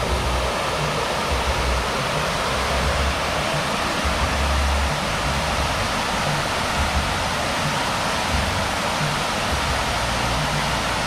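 Rows of fountain jets falling back into a pool: a steady rushing hiss of splashing water, with an uneven low rumble coming and going underneath.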